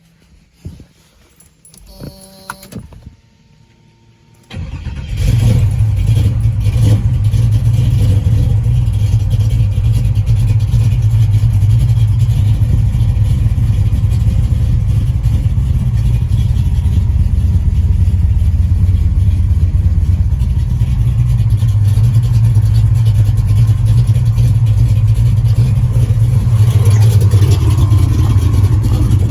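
Chevrolet Chevelle engine starting: after a click and a brief whir, it catches suddenly about four and a half seconds in and settles into a steady, deep idle. The pitch rises slightly near the end.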